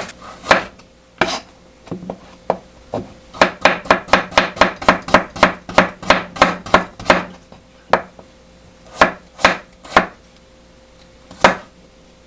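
Knife chopping on a cutting board: a few separate strokes, then a quick, even run of about four strokes a second, then a few slower strokes near the end.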